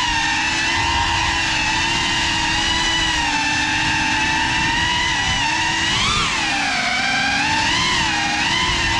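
Geprc Cinelog35 FPV quadcopter on a 6S battery in flight, its brushless motors and propellers whining steadily, heard from the GoPro mounted on the drone. The pitch swings up and down with the throttle, with a quick sharp rise and fall about six seconds in.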